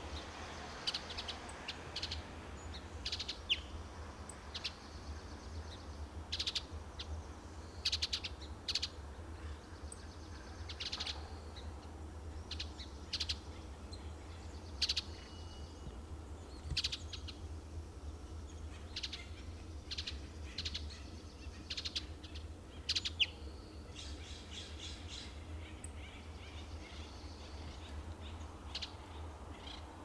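Western bluebird giving short, sharp calls again and again at uneven intervals, with a brief quick run of rapid notes about three-quarters of the way through.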